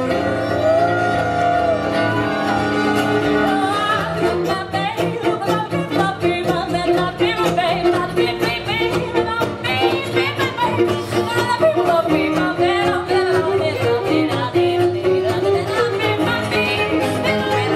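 Music: a song with a singing voice over instruments, a quicker rhythm coming in about four seconds in.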